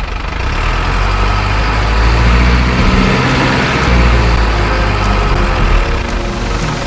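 Truck engine running steadily, a loud continuous engine sound with a strong low hum.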